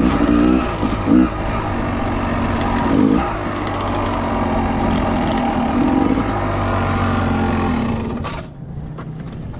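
Dirt bike engine running under the rider as the bike climbs a rocky trail, with the pitch wavering as the throttle changes. About eight seconds in the engine note drops and goes quieter as the bike slows to a stop.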